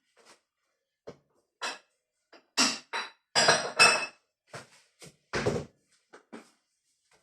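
Knife cutting up a pineapple: a series of irregular knocks, loudest and closest together in the middle.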